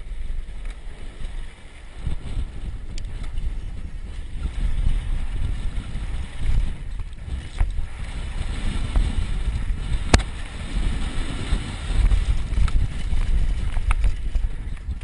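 Wind buffeting a helmet-mounted camera's microphone, with the tyres and frame of a mountain bike rumbling and rattling over a dirt trail at speed. A single sharp knock about ten seconds in.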